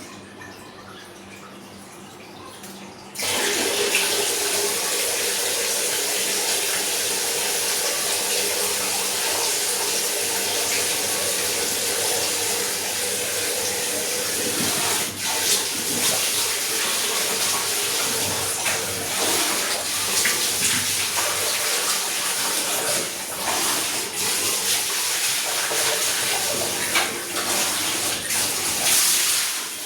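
Samsung top-load washing machine filling with water: about three seconds in, water suddenly starts rushing into the drum, then runs steadily.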